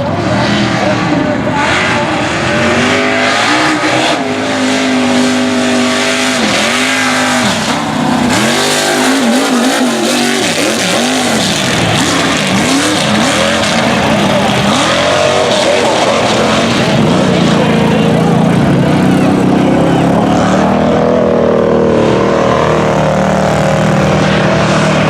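Mega mud truck engine running hard and loud, its pitch swinging up and down as the throttle is worked, then holding higher and steadier in the second half.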